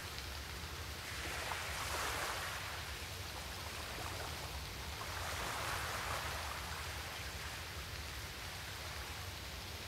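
Faint, steady hiss with a low hum underneath, swelling gently twice, like distant rain or surf.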